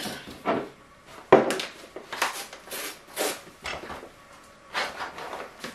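Dry taheebo bark shaken from a glass jar into a glass bowl on a kitchen scale, with a sharp knock about a second in, then the rustle and crinkle of a paper bag of dried green tea leaf being handled.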